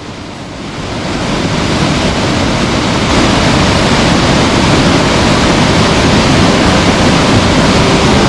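Skógafoss waterfall's falling water heard close up: a loud, steady rush that builds over the first three seconds and then holds.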